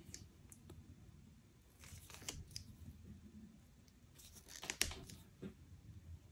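Small flush-cut side cutters nicking and scraping the insulation of a thin wire as it is stripped by hand: faint, scattered snips and scrapes, with the loudest cluster a little under five seconds in.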